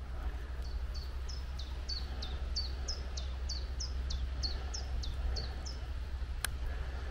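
A small songbird singing a fast run of short, high chirps that each sweep downward, about three a second for some five seconds. Under it is a steady low rumble, and a single sharp click comes near the end.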